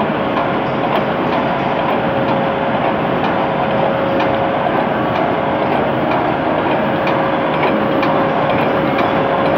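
Automatic welded wire mesh machine running: its row of welding heads firing on the wire mesh with a continuous mechanical clatter, faint repeated clicks and a steady hum underneath.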